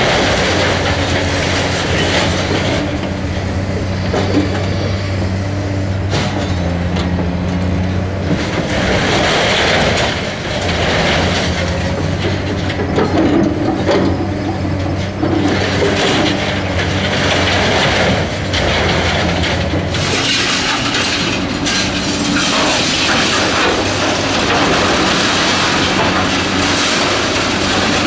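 Caterpillar 345C UHD excavator's diesel engine running under load while its hydraulic demolition grapple swings and loads scrap metal into a steel container, with irregular metal clanking and scraping throughout. The engine's steady tone eases off about two-thirds of the way through.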